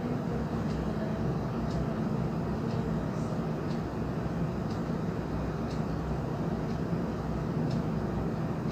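Steady low mechanical hum with faint, light ticks about once a second.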